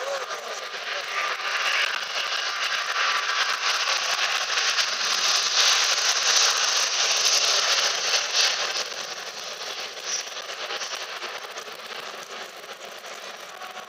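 Airbus A380's four jet engines at takeoff power, a loud, even rush of jet noise. It builds to its loudest around six seconds in as the airliner lifts off past the listener, then fades steadily as it climbs away.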